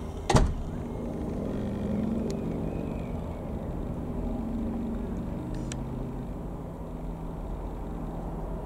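Reims Cessna F172N Skyhawk's four-cylinder piston engine and propeller droning steadily as the plane flies overhead. A sharp click sounds about half a second in.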